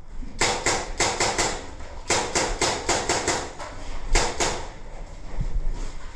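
Airsoft electric gun (AEG) firing strings of rapid shots, about four or five a second: a string of about five, a longer string of about seven, then two more.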